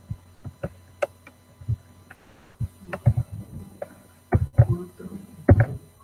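Irregular clicks and taps of a computer keyboard and mouse, loudest in clusters about four and a half and five and a half seconds in, over a faint steady low hum.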